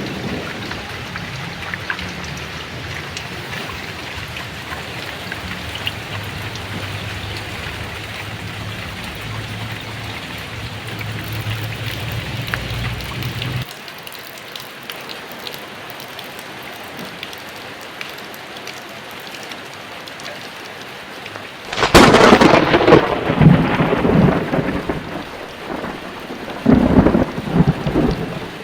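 Heavy rain falling steadily in a thunderstorm. A low thunder rumble cuts off abruptly about halfway through. Later a sudden, loud thunderclap crashes and rumbles for a few seconds, and a second loud burst of thunder comes near the end.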